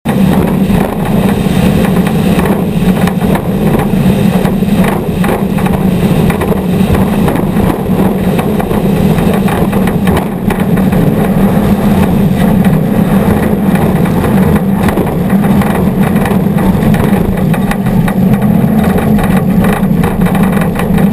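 Off-road race truck engine running loud and continuous at a steady pitch.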